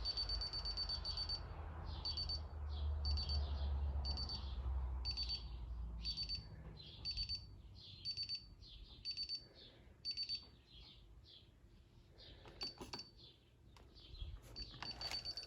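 DSC PowerSeries NEO alarm keypad beeping, a high tone repeated about once a second after a longer opening beep. This is the exit-delay countdown as the panel tries to arm in away mode after the master code is entered.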